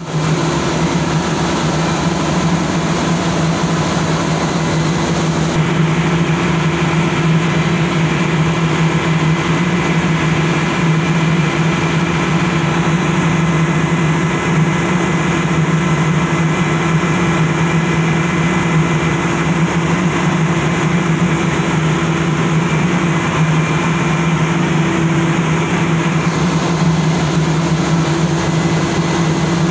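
Steady, loud drone of running machinery in a ship's engine room, a constant low hum with an even pitch and no change in speed.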